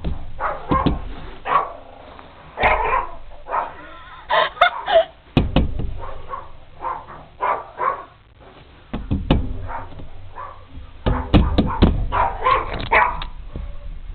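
A dog barking furiously in repeated bursts of several barks, with a short lull about eight seconds in. This is alarm barking at the doorbell, heard through a propped-open door.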